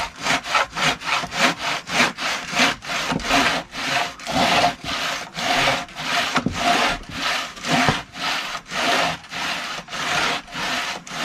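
Bow saw cutting through the crumbly, partly rotten end of an old log, in a fast, even rhythm of push-and-pull strokes, about three a second.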